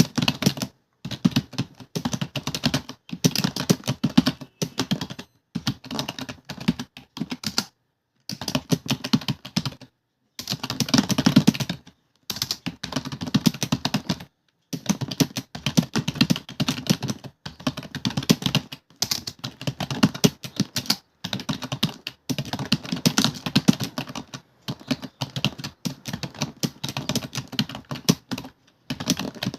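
Computer keyboard being typed on quickly and continuously, a rapid stream of key clicks in runs broken by brief pauses every second or two.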